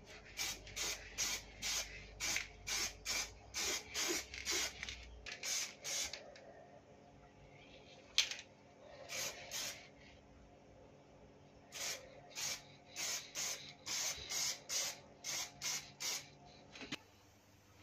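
Aerosol spray-paint can spraying in short bursts, a little over two a second, in two long runs with a pause between them. A single sharp click comes in the pause.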